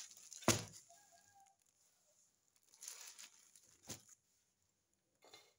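Plastic-wrapped flag packets rustling as they are handled on a tile floor, with a sharp thump about half a second in and softer crinkling around three seconds in. A brief pitched animal call sounds about a second in.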